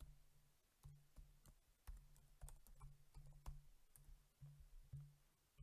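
Faint typing on a computer keyboard: irregular key clicks as a word is typed out.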